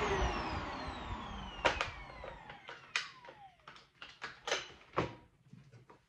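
Shark NV360 Navigator Lift-Away upright vacuum switched off, its motor winding down with a falling whine over about two seconds. Then a series of sharp plastic clicks and knocks as the dust canister is unlatched and lifted off the vacuum.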